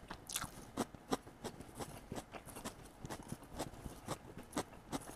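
Someone chewing a mouthful of shredded cabbage, crisp crunches about three times a second.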